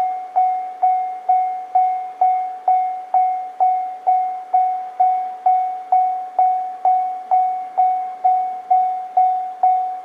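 Japanese level-crossing warning alarm ringing steadily, a little over two strikes a second, each one a single sharp tone that quickly dies away. It is the signal that a train is approaching and the barriers are down.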